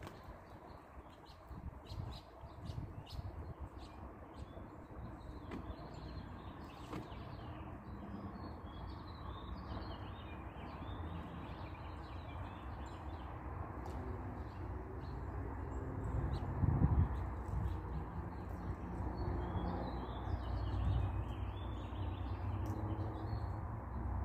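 Small songbirds chirping and twittering over and over, over a low outdoor rumble that swells about two-thirds of the way through.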